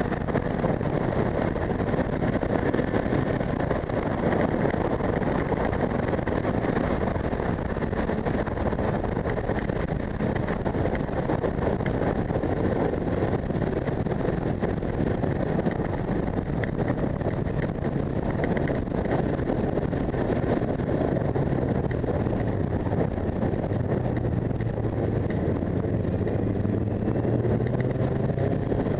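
Wind rushing over the microphone of a moving motorcycle at road speed, over the steady drone of the motorcycle's engine, whose note climbs near the end.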